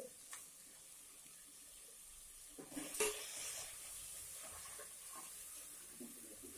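Sliced onions frying in oil in an aluminium pot, a faint steady sizzle, with a metal spatula scraping and clicking against the pot about three seconds in as they are stirred.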